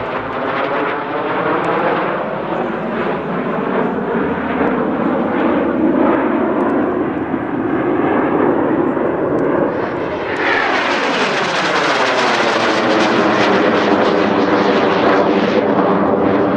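TS-11 Iskra jet trainers' turbojets running steadily in a display flyby. About ten seconds in, a jet passes close and the sound turns brighter and louder, with a swooshing sweep that falls in pitch.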